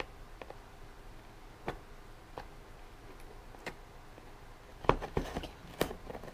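Scissors cutting at the edge of a cardboard box, with sharp snipping clicks and handling of the box: a few spaced clicks, then several louder ones in quick succession about five seconds in.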